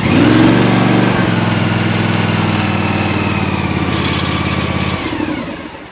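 Gravely ZT HD zero-turn mower's engine catching off the starter and running steadily at about half throttle. About five seconds in, the note drops and the sound falls away as the engine is throttled down.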